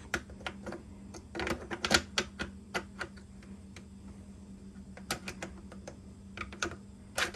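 Irregular small metallic clicks and scrapes of a WASR-22 .22 rifle's bolt and carrier being worked back into the receiver, coming in short clusters.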